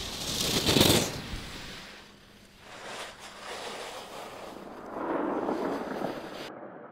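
Skis carving and scraping across hard snow, heard as rushes of hiss as racers pass: a loud one about a second in, a shorter one around three seconds and a longer one about five seconds in, before the sound cuts off.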